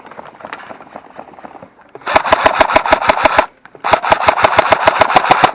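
Airsoft rifle firing two long full-auto bursts, each a rapid run of sharp cracks at about a dozen shots a second, starting about two seconds in with a short break between them. The second burst empties the magazine.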